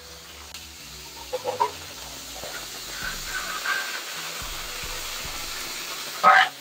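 Beef tenderloin steaks sizzling in a hot frying pan as butter and garlic are spooned in; the sizzle grows louder about three seconds in.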